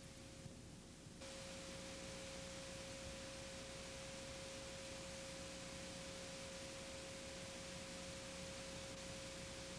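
Faint, steady pure tone a little above 500 Hz over tape hiss, with the hiss stepping up about a second in: a line-up tone of the kind recorded with a commercial's slate card on videotape.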